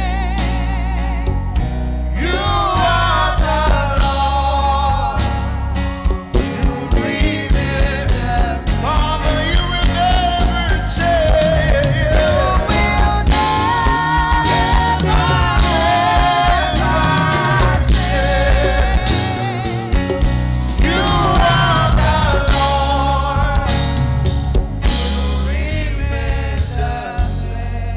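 Gospel music: singing voices over drums and bass, with a steady beat.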